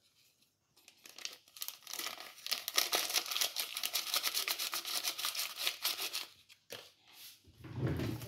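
Dr. Oetker baking-powder sachet crinkling as it is squeezed and shaken empty over a mixing bowl, a rapid crackling rustle lasting about five seconds. Near the end comes a dull low thump.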